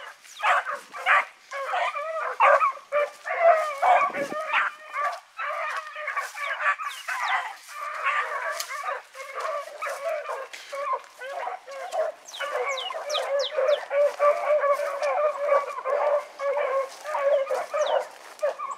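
A pack of rabbit hounds baying on a rabbit's trail, several dogs' voices overlapping almost without a break.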